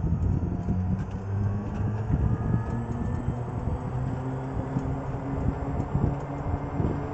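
Royal EV electric golf cart accelerating: the drive motor's whine rises in pitch over the first few seconds, over a steady low hum and wind and road noise.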